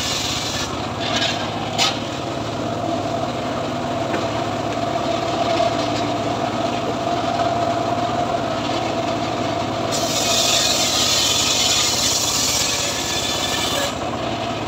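Homemade circular-saw bench running with a steady whine while its blade cuts through a mahogany log. There is a single knock about two seconds in, and the cutting grows harsher from about ten seconds in until just before the end.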